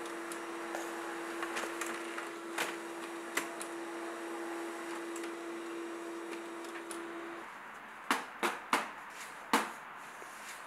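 Desktop office printer running, a steady hum with light clicks as it feeds out paper, stopping about two-thirds of the way through. Then four sharp knocks in quick succession near the end.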